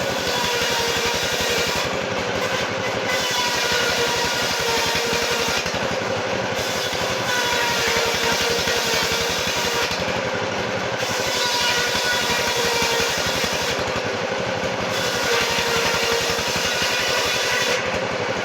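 Sawmill machinery running steadily: a continuous mechanical drone with several steady tones and a fast, even pulsing.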